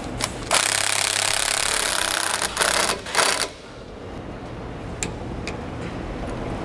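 Cordless impact wrench hammering a nut down tight for about two seconds, then two short follow-up bursts. A couple of light clicks come after.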